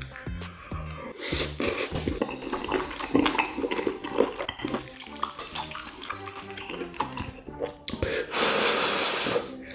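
Close-up chewing of spicy stir-fried small octopus and beef large intestine, many short wet smacks and clicks of the mouth. About eight seconds in comes a long, loud slurp of thick noodles.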